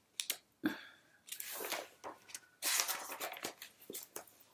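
Paper rustling with a few small clicks and knocks: pages of a picture book being handled and turned.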